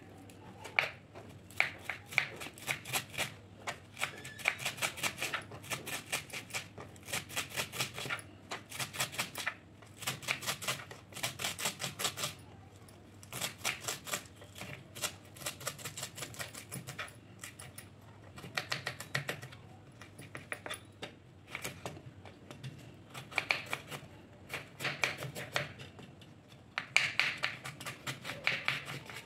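Kitchen knife chopping fresh dill leaves on a wooden cutting board: quick runs of blade strikes, several a second, broken by short pauses.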